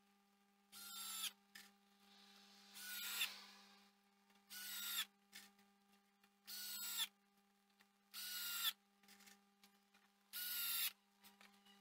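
Cordless drill run into wood in six short bursts, each about half a second, its motor whine rising as it spins up and then holding. A faint steady hum runs underneath.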